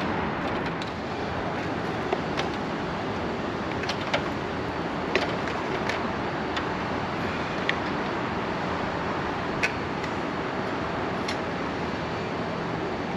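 Steady background noise, like distant street traffic, with a dozen or so scattered sharp clicks and clinks of tools and bike parts being handled during assembly.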